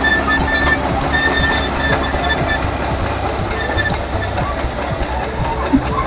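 Caterpillar D4H crawler bulldozer working, its diesel engine running steadily under a loud churn while the steel tracks give off intermittent high-pitched squeals.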